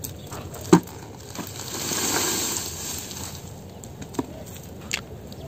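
Scattered clicks and crackles of fresh red dates being pulled off their strands by hand, with one sharp click about a second in and a few lighter ones near the end. A rush of noise swells and fades around the middle.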